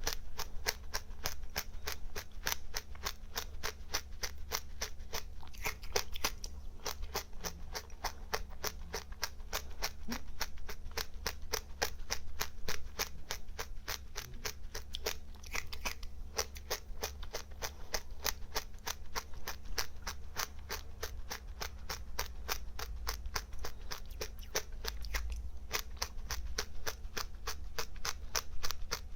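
Dry seeds being chewed close to the microphone: a steady, even run of crisp crunches, about three a second.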